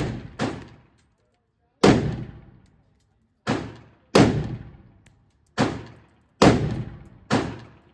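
Gunshots fired one at a time, about eight in all at an uneven pace of roughly one a second. Each shot has a sharp crack followed by a long echoing decay.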